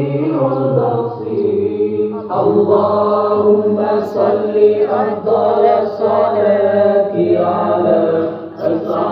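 Voices chanting in Arabic over a steady low hum, the chant pausing briefly a little after two seconds in and again near the end.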